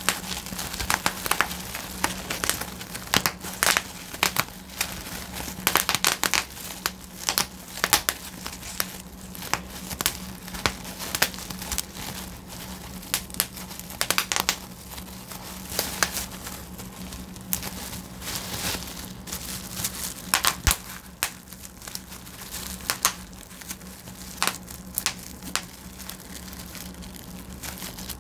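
Bubble wrap being popped by hand: a long, irregular run of sharp pops, thicker in the first half, over the crinkling of the plastic film as it is twisted and squeezed.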